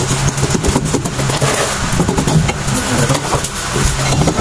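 A motor or engine running steadily in the background, with scattered light metallic clicks and knocks as the rear axle and brake backing plate are worked loose by hand.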